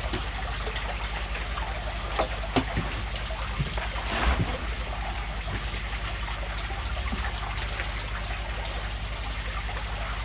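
Steady trickle of water from a running aquarium filter, with a few sharp clicks of plastic packaging being handled about two and four seconds in.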